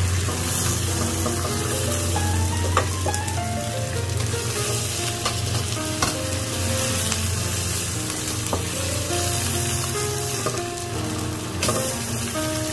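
Food sizzling in a hot pan as it is stirred, with a few sharp clicks of the utensil against the pan. Soft background music with a stepping melody runs underneath.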